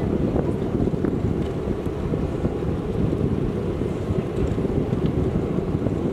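Wind buffeting the microphone: a steady, low rumble that flutters in loudness.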